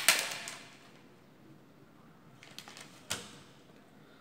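Paper handling at a desk: a short rustle right at the start that dies away within half a second, then a few light clicks and a single tap about three seconds in.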